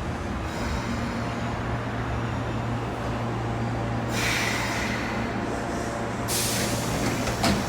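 Osaka Metro Midosuji Line train standing at a platform with a steady low hum, and two bursts of air-brake hiss about four and six seconds in. A sharp click comes near the end.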